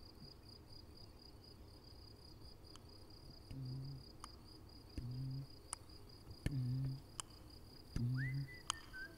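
Cricket chirping in a steady, fast pulse. About three and a half seconds in, a low two-note musical pulse joins it and repeats every second and a half, with scattered sharp clicks and a rising whistle-like glide near the end.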